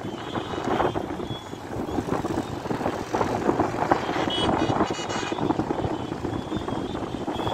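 Steady din of busy road traffic at a junction: motorbike, auto-rickshaw and car engines running together, with a short horn beep about halfway through.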